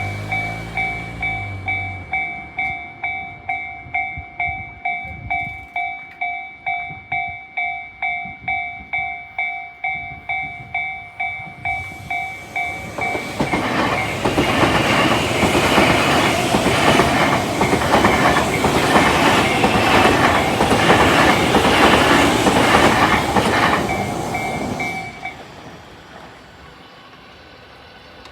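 Japanese level-crossing warning bell, Tobu Tojo-type electronic bell, ringing a two-note tone about two and a half strokes a second. About 13 seconds in a train passes over the crossing with a rhythmic clatter of wheels over rail joints, the bell ringing on beneath it until it stops about 25 seconds in.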